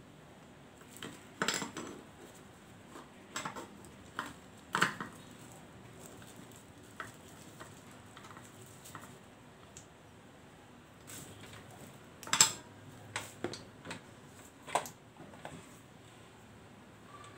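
Scattered clinks and knocks as a RoadPro RPSL-350 slow cooker's glass lid, pot and power cord are handled. The loudest come about a second and a half in, near five seconds and just past twelve seconds.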